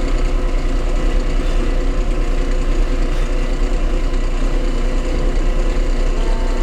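An electric woodworking power tool running steadily, its motor hum holding an even pitch with a fast, slight pulsing in loudness.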